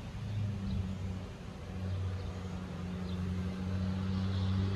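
Steady low hum of an idling engine.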